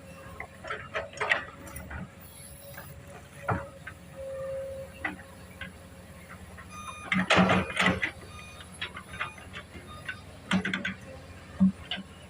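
Komatsu PC200 hydraulic excavator working, with a steady low engine hum under irregular metallic clanks and knocks, and a loud burst of clattering a little past the middle.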